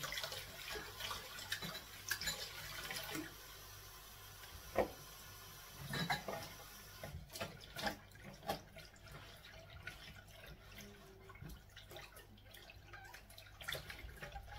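Dishes being washed by hand in a stainless steel sink: tap water running over a glass bowl with knocks and clinks. The running water stops suddenly about halfway through, leaving scattered clinks and splashes.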